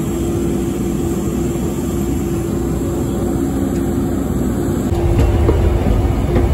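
Steady drone of a parked airliner and its apron machinery: a constant hum over a low rumble, which grows heavier about five seconds in.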